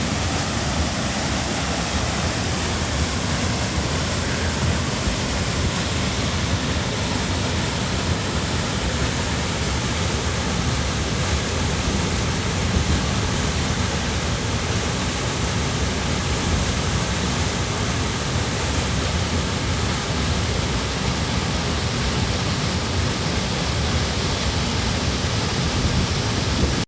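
Amnicon Falls waterfall heard up close: falling water rushing in a dense, steady, unbroken noise.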